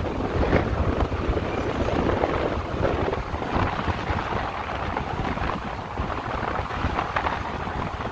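Wind buffeting the microphone of a rider on a moving electric motorcycle: a steady rush with irregular low gusts, the bike's own motor hardly heard under it.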